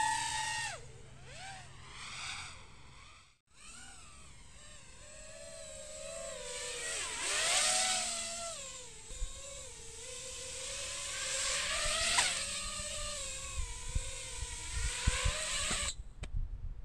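An iFlight XL5 FPV quadcopter in flight, its brushless motors and propellers whining and rising and falling in pitch with the throttle. The whine drops out briefly about three seconds in and cuts off suddenly near the end, leaving a few low thumps.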